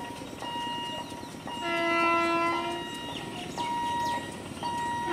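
Locomotive horn blowing one note for about a second, beginning about two seconds in and starting again at the very end. Under it, a single electronic beep repeats about once a second.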